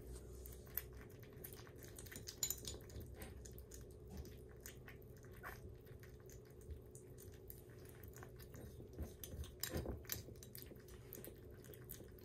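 Kittens eating soft weaning food from ceramic bowls: quiet, irregular lapping and chewing clicks over a faint steady hum, with a brief cluster of louder clicks near the end.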